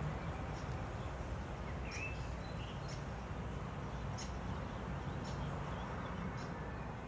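Outdoor ambience: a steady, mostly low background noise with a few faint bird chirps.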